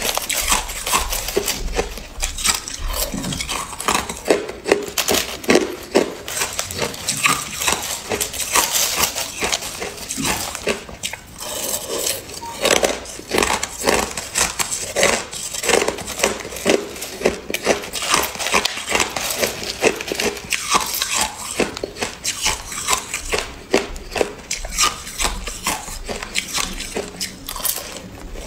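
Crushed ice being bitten and chewed, a dense run of sharp crunching and crackling several times a second, with a plastic spoon scooping through the ice in the bowl.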